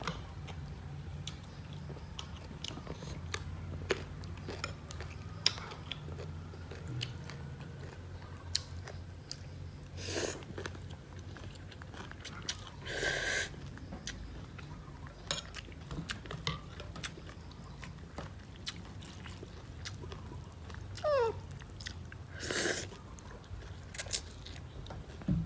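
Close-up chewing and biting as a baby macaque munches small round fruits: many small wet clicks, with a few louder crunches about ten, thirteen and twenty-three seconds in. A steady low hum runs underneath.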